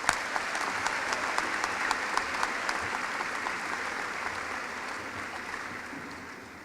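Audience applauding in a large arena, many claps at once, slowly fading away near the end.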